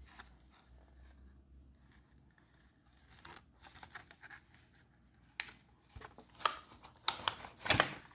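Handling of Hot Wheels blister-card packaging: faint rustling at first, then from about the middle a run of sharp clicks, scratches and tearing of card and plastic, loudest near the end.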